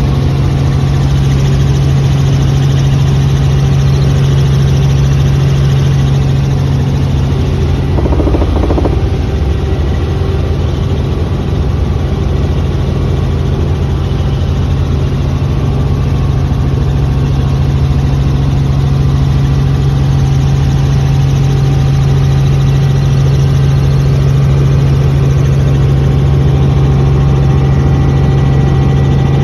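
Robinson R44 helicopter's engine and rotors heard from inside the cabin in steady cruising flight: a loud, even drone with a strong low hum. A brief extra sound cuts in about eight seconds in.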